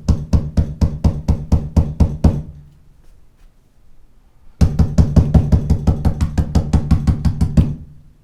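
Rapid banging on a door in two bursts: about a dozen fast knocks, a pause of about two seconds, then a longer and faster run of knocks.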